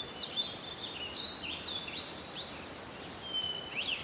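Birds chirping, a busy run of short whistled notes that rise and fall, over a steady background hiss.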